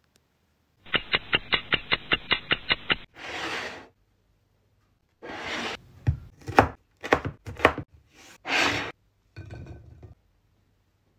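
A quick run of about a dozen ticks, then brief swishes and a cluster of sharp knocks: a knife cutting jello-filled lime halves into wedges and striking the board.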